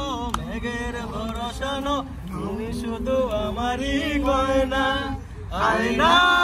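A voice singing a slow, chant-like line in long held notes that slide between pitches, breaking off briefly about two seconds in and again near the end, over a steady low rumble.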